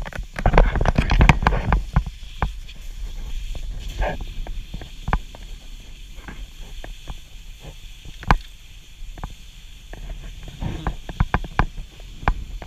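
Skis sliding and scraping over snow, with many short clicks and knocks and a low wind rumble on the microphone. It is busiest and loudest in the first two seconds.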